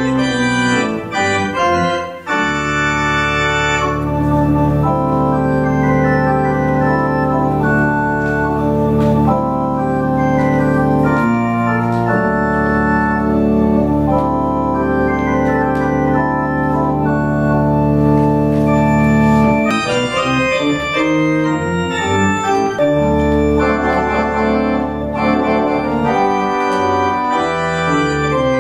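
Organ playing: long held chords over sustained bass notes through most of the middle, with quicker-moving notes near the start and again from about two-thirds of the way through.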